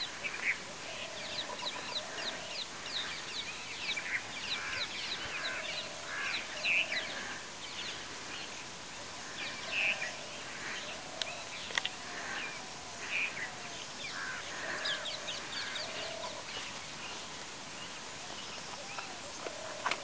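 Several wild birds calling over each other in forest: many quick chirps, whistles and short falling notes, over a steady high-pitched hiss. There is one sharp click a little past halfway.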